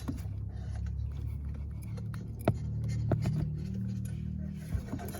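Car engine running with a steady low drone, swelling slightly about three seconds in and dropping away near the end, with a few sharp clicks.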